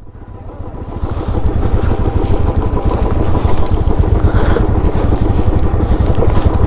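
Motorcycle engine running with a low, pulsing rumble, growing louder over the first second and then holding steady.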